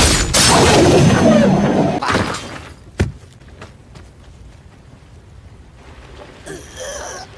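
Animated battle sound effects: a loud crash with rumbling debris for about two seconds, then one sharp hit about three seconds in, after which it dies down. A short strained vocal sound comes near the end.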